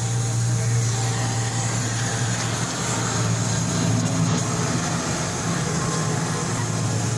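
Gas welding torch flame hissing steadily as it heats a car's exhaust pipe, over a constant low hum.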